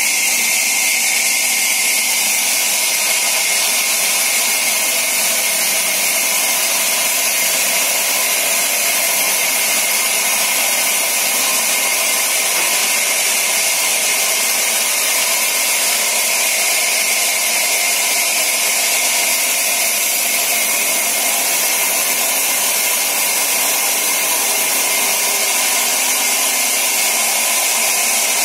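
Sawmill band saw running, a loud, steady hiss that holds without a break.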